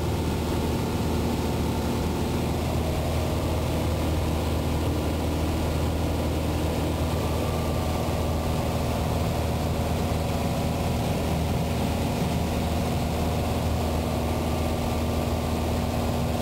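Beechcraft Sundowner's four-cylinder Lycoming engine and propeller droning steadily, heard inside the cockpit. The engine is at the reduced power set for the approach, with the tachometer showing a little over 2,000 RPM.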